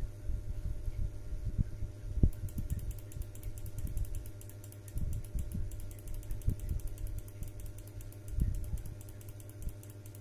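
Rapid run of faint, high, evenly spaced clicks from a computer mouse's scroll wheel turning, starting about two seconds in. Under it are a steady low hum and irregular low bumps of handling noise on the microphone, the loudest about two seconds in.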